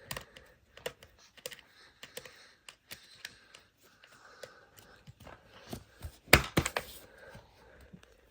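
Screwdriver working a screw loose in a plastic baby rocker: scattered small clicks and taps, with a louder clatter of knocks about six seconds in.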